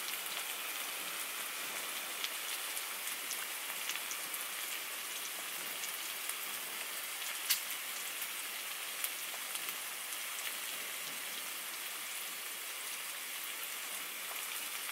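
Frying pan of hash browns, onions and smoked back bacon sizzling in a steady hiss, with a few sharp pops.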